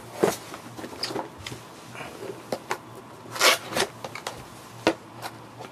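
Packaging of a boxed keyboard being handled and opened: scattered sharp clicks and knocks, with a short scraping rustle about three and a half seconds in.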